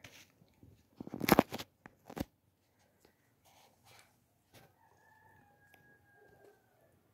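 A short, loud burst of crackling about a second in and a smaller one a second later, then a faint, long, drawn-out animal call near the end that drifts slightly down in pitch.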